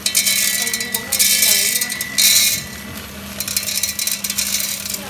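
Raw green coffee beans poured by hand from a plastic tray into a coffee roaster's stainless steel hopper, a loud pattering rattle of beans on metal in two pours with a short lull between, over a steady low hum.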